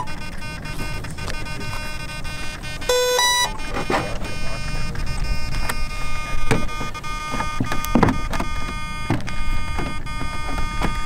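A short electronic beep of about half a second, about three seconds in, from the radio-control gear being powered up in the model airliner, followed by a few sharp knocks as the plastic nose hatch is handled and pressed shut.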